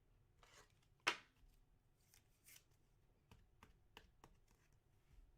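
Faint handling of trading cards: cards sliding and flicking against each other in short scattered clicks, with one sharper snap about a second in.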